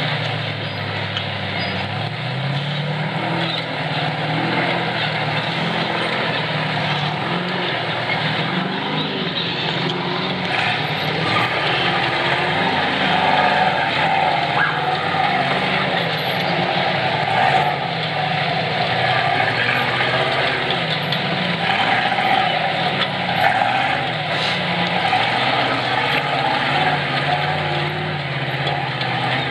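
Rock-racing buggy's engine running at a loud, steady level, the revs rising and falling as it crawls over boulders.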